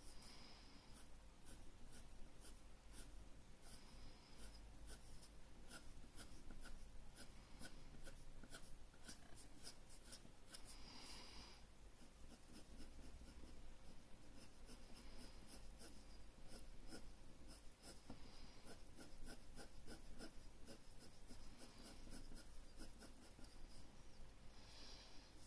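Faint scratching of a graphite pencil shading on drawing paper in many short, quick strokes, with a few brief, louder scuffs of the hand sliding over the paper.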